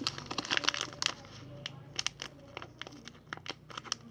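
Crinkling plastic packaging being handled, a quick irregular run of small sharp crackles and clicks, busiest in the first second.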